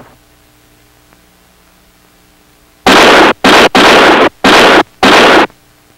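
Five loud gunshots in quick succession about halfway through, after a few seconds of faint hum on the soundtrack.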